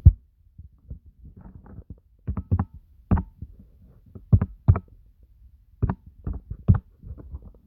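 Irregular keystrokes on a Logitech wireless keyboard: sharp clicks with dull thumps, coming in short spurts of two or three.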